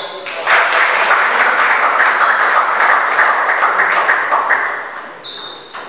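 A small crowd of spectators applauding the end of a table tennis rally. The clapping starts just after the opening and dies away about five seconds in.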